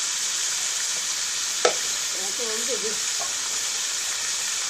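Mutton pieces coated in spice pastes sizzling as they fry in a kadai: a steady hiss, with one sharp knock about a second and a half in.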